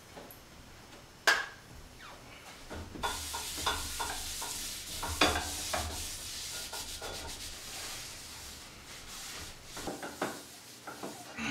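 Salt and olive oil being scrubbed around the inside of a polished cast iron skillet with a paper towel, a gritty rubbing that starts about three seconds in and fades near the end. A sharp knock comes about a second in.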